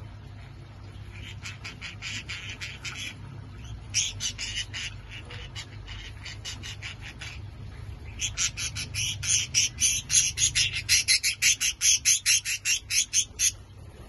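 Budgerigars chirping in quick runs of short, high calls, in three bouts, the last and loudest from about eight seconds in until shortly before the end.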